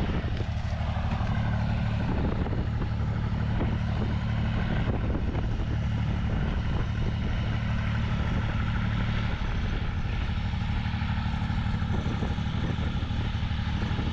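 An engine running steadily at an even speed, a low constant hum.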